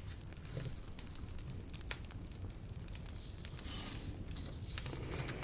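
Faint, scattered small crackles and clicks over a low steady hum, with a brief soft rustle about four seconds in.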